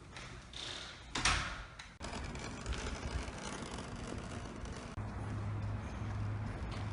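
A door sliding or swinging shut about a second in, followed by steady background noise with a low hum setting in about five seconds in.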